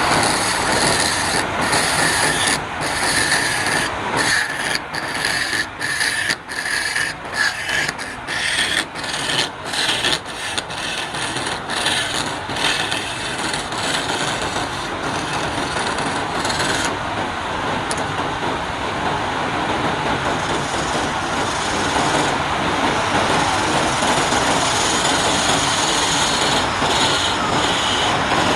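Wood being worked on a spinning lathe: a loud, rough scraping rasp. In the first half it breaks off briefly about once or twice a second, then it runs steadily.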